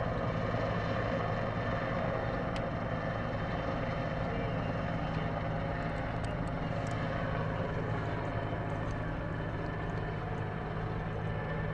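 Police helicopter flying at a distance: a steady drone of turbine and rotor, easing off a little near the end.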